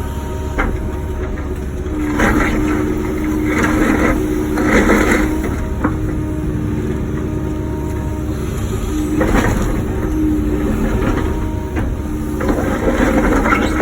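Wacker Neuson ET 145 excavator working under load: a steady diesel and hydraulic hum, broken by about four rough bursts of scraping and crunching as the bucket digs.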